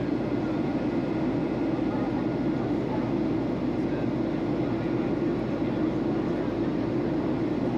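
Steady cabin noise of a Boeing 737-800 in flight, heard inside the cabin beside the wing: the continuous roar of its CFM56-7B turbofan engines and the airflow over the fuselage, holding an even level.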